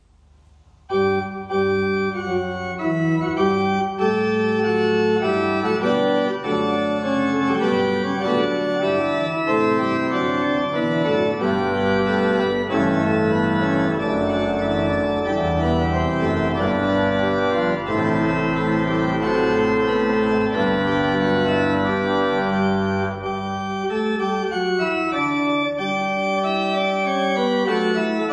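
Church pipe organ playing sustained full chords over a deep pedal bass, starting about a second in; the lowest bass thins out and the sound lightens a little about three quarters of the way through.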